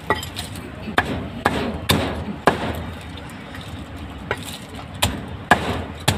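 A cleaver chopping through roasted meat onto a chopping board. About nine sharp, uneven chops, with a short pause a little past the middle.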